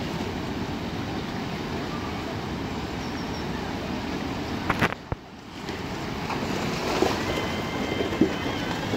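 Rushing whitewater of the Eisbach river's standing surf wave, a steady churning rush of water. About five seconds in it briefly drops, with a couple of sharp knocks.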